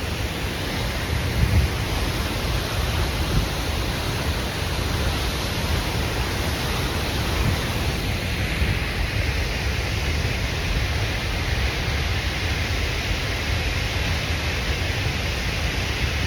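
Wind blowing on the microphone: a loud, steady rush with a low, uneven rumble.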